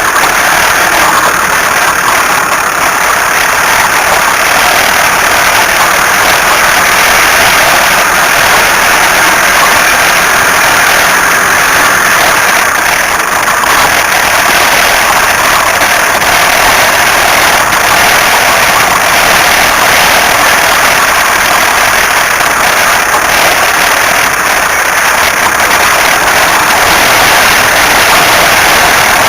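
A car making a loud, steady, harsh noise that neither changes nor breaks off, with no clear pitched whine or knock in it.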